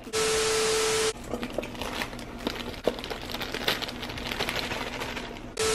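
Thin disposable plastic gloves crinkling and rustling as they are handled and pulled on, with small ticks and taps. Right at the start and again near the end comes a loud burst of static with a steady low tone in it, about a second long, which starts and stops abruptly.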